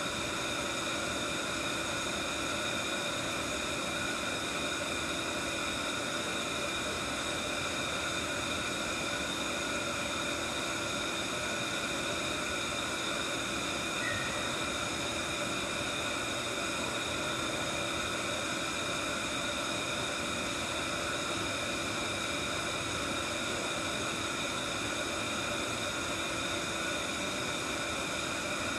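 Steady whir and hiss of lab machinery running, with several constant tones over an even noise and no change throughout.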